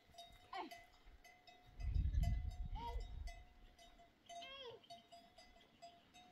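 Three short bleats from livestock, bending in pitch, over the faint intermittent tinkling of livestock bells, with a low rumble about two seconds in that is the loudest sound.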